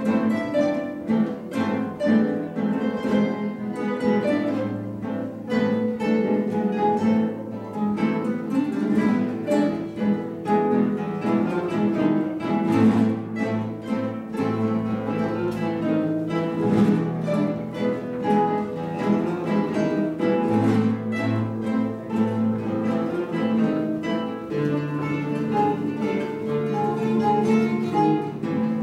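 Guitar ensemble playing a piece together: many plucked notes in the melody and chords over a line of sustained low bass notes.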